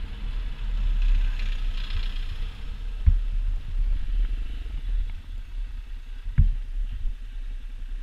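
Small motorcycle on the move, its engine running under a heavy rumble of wind on the onboard camera's microphone. Two sharp knocks come about three seconds apart.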